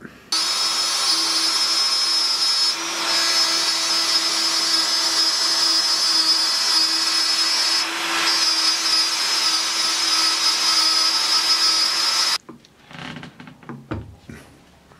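Plunge router running at full speed, cutting a groove through plywood, a steady loud whine that cuts off suddenly about twelve seconds in. A few light knocks follow.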